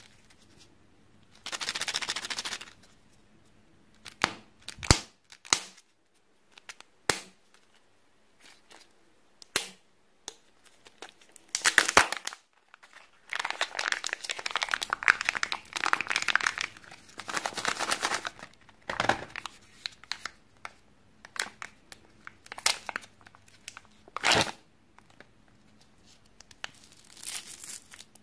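Kinder Joy egg being opened by hand: crinkly tearing of its foil seal and wrapping, with sharp plastic clicks and snaps, and a long stretch of foil crinkling about halfway through.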